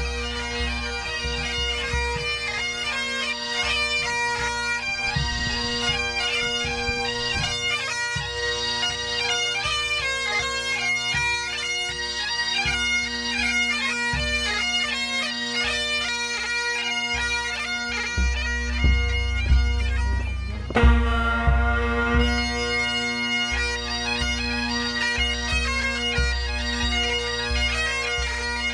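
A band of Highland-style bagpipes playing a tune over their steady drones, with a bass drum beating underneath. About two-thirds through, the melody stops short and the pipes start up again.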